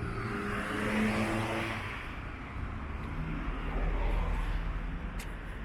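Road traffic: a car goes by about a second in, tyre hiss and engine swelling and fading, followed by the low rumble of another vehicle around four seconds in.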